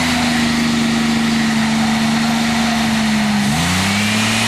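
Car's 3.8-litre V6 running at high, steady revs with its throttle propped open by a piece of wood. About three and a half seconds in, the revs dip briefly and climb back up.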